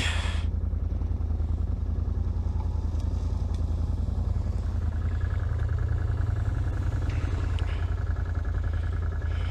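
ATV engine running steadily at low revs, an even low drone with no revving.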